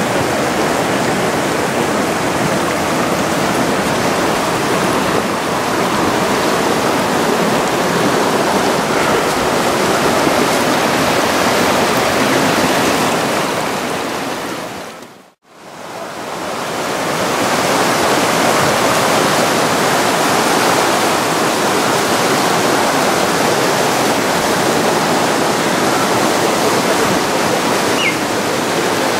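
Steady rush of a mountain stream running over rocks. It fades away to almost nothing about halfway through, then fades back in.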